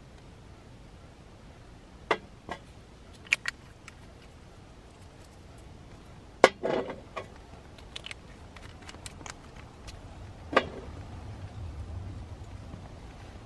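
Scattered light clicks and knocks of small hard objects being handled, with a short clatter about six and a half seconds in and a sharper knock near ten and a half seconds.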